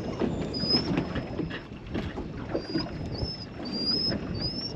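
Irregular knocks and rustles of handling aboard a small boat, over a steady low rumble of water and wind. A small bird repeats short, high, rising whistles throughout.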